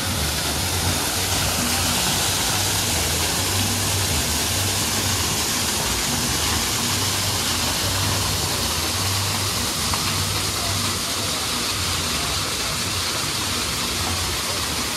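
Waterfall splashing steadily down artificial rockwork, a constant rushing hiss.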